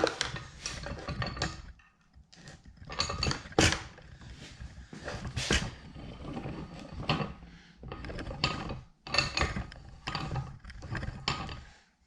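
Metal parts of a bench vise being handled and fitted together during its repair, with irregular clinks, knocks and rattles and a couple of short pauses.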